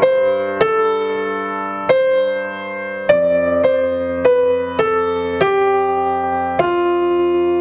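Grand piano played slowly with both hands, single notes sounding and held in turn over a low sustained note. An electronic metronome clicks on each beat, about every 1.2 seconds (50 beats a minute).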